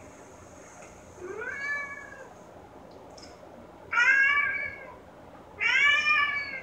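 Black domestic cat meowing three times, each call about a second long, the second and third much louder than the first, heard through a television's speakers.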